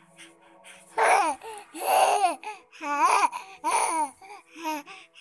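A baby babbling and laughing in about five loud bursts that bend up and down in pitch, starting about a second in.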